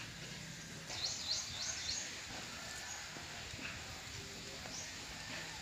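Small birds chirping: a quick run of four or five high chirps about a second in, then a few fainter single calls.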